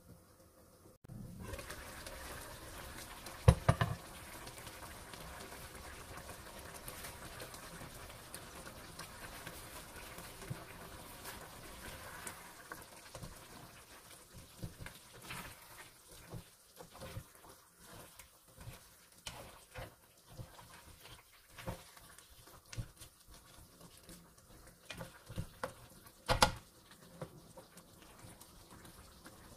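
Chicken stew in tomato sauce simmering in a nonstick wok, with small pops and clicks as a spatula stirs it. Two sharp knocks of the spatula against the pan, about three seconds in and near the end.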